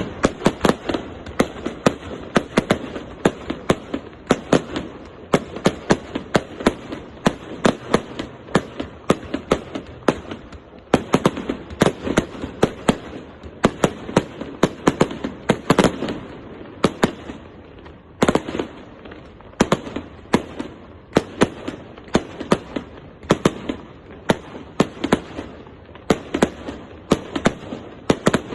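Aerial fireworks display by Maxima Fireworks: a rapid, uneven run of sharp bangs, several a second, with a couple of brief lulls.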